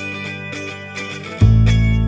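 Background music led by a plucked guitar, with a deep bass note coming in about one and a half seconds in.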